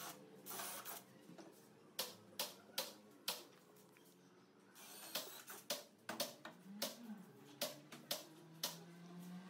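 Irregular sharp clicks and knocks of wooden parts and hand tools being handled at a workbench, coming in small clusters, over faint background music.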